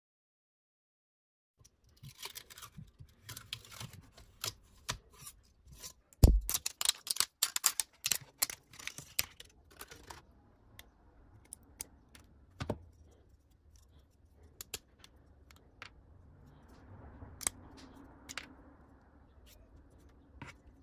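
Hard 3D-printed plastic parts clicking, tapping and knocking as they are handled, starting about two seconds in, with one louder knock about six seconds in; the clicks thin out in the second half.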